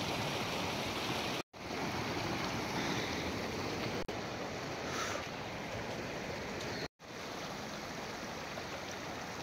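Mountain stream rushing steadily, broken by two brief dropouts to silence, about a second and a half in and about seven seconds in.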